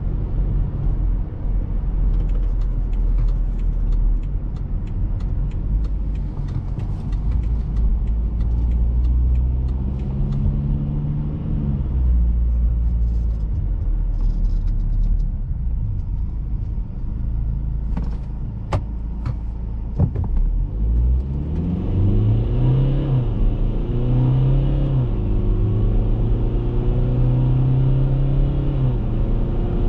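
Cabin sound of a BMW X3 F25's 2.0-litre four-cylinder turbodiesel and road rumble while driving, with a few sharp clicks a little past halfway. It then accelerates hard: the engine note climbs, drops at each upshift of the ZF automatic, and climbs again, about three times.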